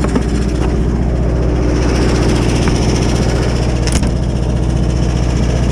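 An engine idling steadily with an even low pulse, and a single sharp click about four seconds in.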